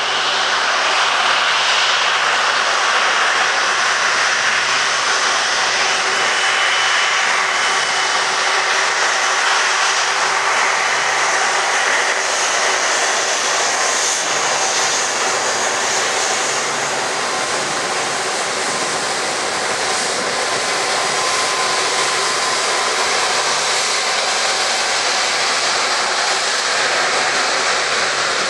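Airliner turbofan engines running at low power as jets roll on the runway, a steady loud rush of jet noise.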